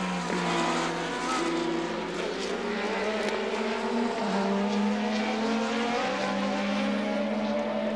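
A McLaren-TAG Formula 1 car's 1.5-litre turbocharged TAG-Porsche V6 running at speed. It is a steady engine note that drops in pitch at upshifts, once near the start and again about four seconds in.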